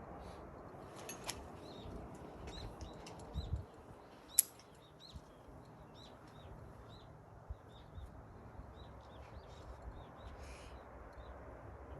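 Small birds chirping in many short, high calls over a low steady outdoor rumble, with a few sharp clicks, the loudest about four and a half seconds in.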